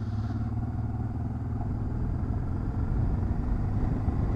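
Honda Transalp 650's V-twin engine running at a steady cruise, a low even hum, with road and wind noise, ridden on a gravel road.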